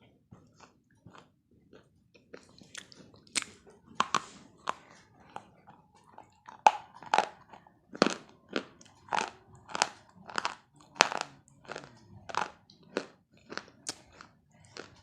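Close-up crunching and chewing of baked clay made from slate pencil: sharp, dry crunches, sparse and faint at first, then coming steadily about one to two a second from about two seconds in.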